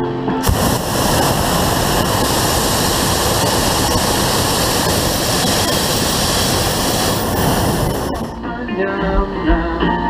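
Hot air balloon propane burner firing in one long blast of about seven and a half seconds: a loud, steady rush that starts suddenly and cuts off abruptly. Background guitar music is heard at either end.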